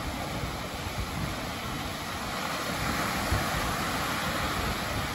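Small waves breaking and washing up a stony cobble beach, the wash swelling about three seconds in. Wind buffets the microphone with low gusty rumbles.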